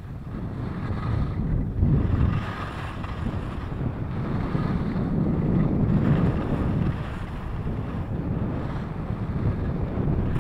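Wind rumbling on a handheld action camera's microphone while skiing downhill, with skis scraping over packed snow. The scraping hiss swells and eases every few seconds.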